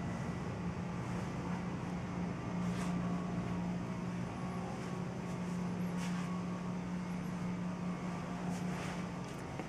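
A steady low hum, with a few faint brief scuffs about three seconds apart.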